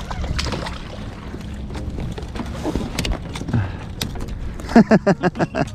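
Fishing tackle being handled while a hooked horse mackerel is brought in: scattered light clicks and knocks of the reel and landing net over a steady low rumble of wind and water. A short burst of voice comes near the end.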